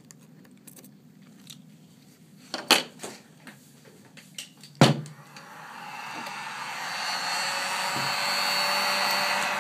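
A few sharp clicks, then about halfway through a hot-air blower starts up and settles into a steady rushing. It is heating the iPad 2's glass to soften the adhesive underneath.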